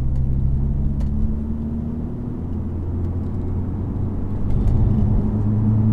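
Alfa Romeo Brera's 2.2 JTS four-cylinder engine and road noise while driving, a steady low engine note. The note shifts in pitch about two to three seconds in and grows louder about four and a half seconds in.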